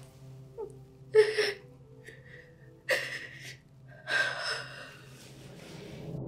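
A woman crying hard: gasping, shaky sobs, with three loud catches of breath about a second and a half apart.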